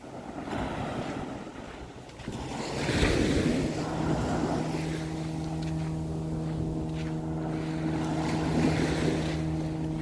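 Small ocean waves washing up onto a sandy beach, one wash swelling about three seconds in. From about three and a half seconds in, a steady motor drone runs underneath the surf.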